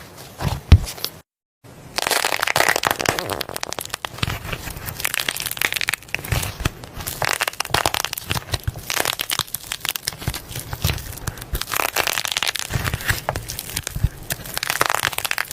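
Slime being squeezed and poked by hand, giving dense crackling and popping clicks. A brief silence just over a second in, then the crackling runs on without pause.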